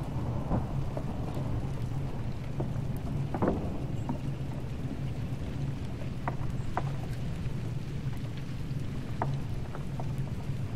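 Ship's engine running with a steady low drone under a constant rushing noise, with a few scattered sharp clicks, the loudest about three and a half seconds in.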